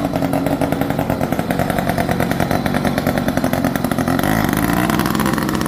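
Small petrol engine of a motorized bicycle running with a rapid, even buzz. Its note changes about four seconds in.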